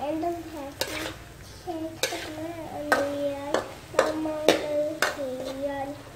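Metal ladle scraping and clanking against a steel wok while cauliflower and chicken organs are stir-fried, a sharp clank about once a second. A child's high voice goes on in the background.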